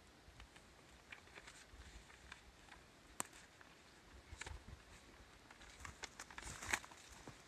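Quiet rustling and scattered small clicks and taps as small flags are handled and pushed into the dry forest floor, with denser rustle of footsteps in leaf litter near the end.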